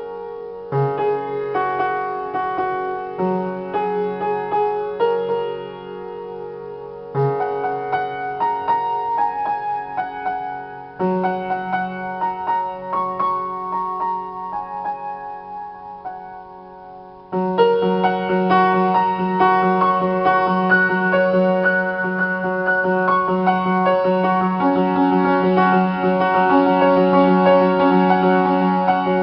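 Piano played as a slow improvisation of held chords and melody notes, in phrases that each begin with a fresh strongly struck chord. About seventeen seconds in, the playing turns louder and fuller, with quicker repeated notes over a sustained bass.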